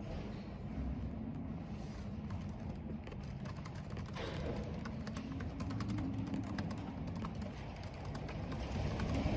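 Computer keyboard typing, a fast run of key clicks that grows dense about two seconds in, over a steady low rumble of wind and rain.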